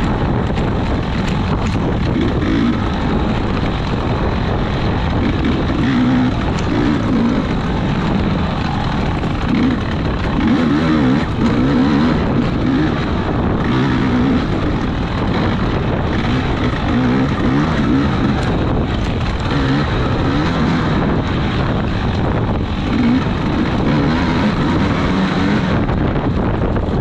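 Small off-road racing engine running hard, its pitch rising and falling as the throttle is worked, with wind noise on the microphone.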